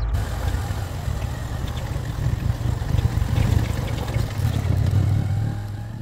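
Motorcycle engine running steadily while riding, with wind rushing over the microphone; it fades out near the end.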